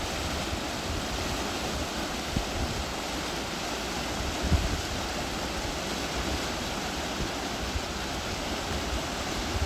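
Swollen, muddy creek in flood rushing fast down its channel, its churning white-water waves making a steady, even rush of water, with a few short low bumps, the biggest about four and a half seconds in.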